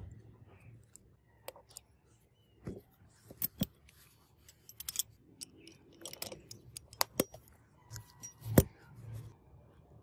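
Butterfly knife's steel blade and brass handles clicking and clacking together in an irregular string of sharp metal clicks. The loudest click comes near the end, with a short metallic ring.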